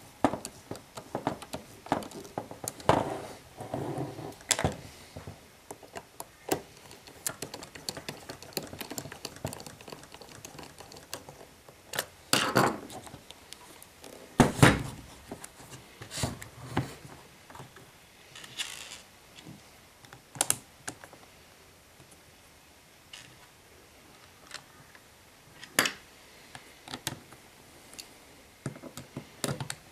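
Plastic clicks and knocks from a Holden VDO instrument cluster being handled and fitted together by hand, with a screwdriver working its screws at first. There is a handful of louder knocks, the loudest about halfway through.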